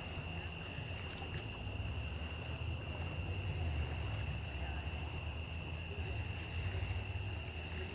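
Insects chirring steadily at one high pitch, over a steady low rumble.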